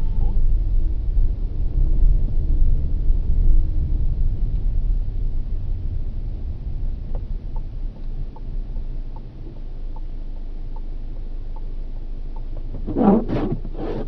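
Low rumble of the Skoda Octavia A7's cabin in slow traffic, easing off after the first few seconds, with a faint regular ticking in the middle. Near the end the windscreen wiper makes two swishes across the wet, snowy glass, the loudest sound here.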